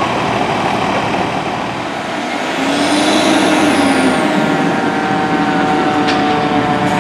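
Diesel engines of fire trucks running loud and steady as the rigs move at low speed, with a rising-and-falling whine from about two and a half to four seconds in.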